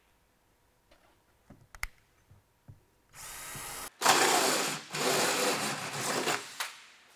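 A cordless drill with a 3.5-inch hole saw, a few light knocks as it is set against a PVC drain pipe, then the drill spinning up about three seconds in. It cuts loudly through the plastic pipe wall for a little over two seconds before the noise dies away near the end.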